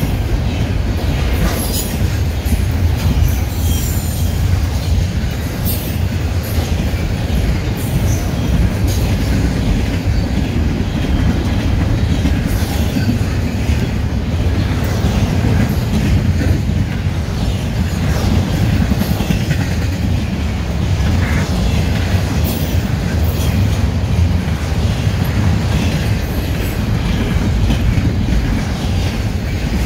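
Double-stack intermodal container train's well cars rolling past at close range: a steady low rumble of steel wheels on rail, with short high-pitched clicks and squeals scattered throughout.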